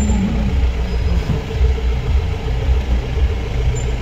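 Jeep engine running with a steady low rumble, heard from inside an open off-road jeep.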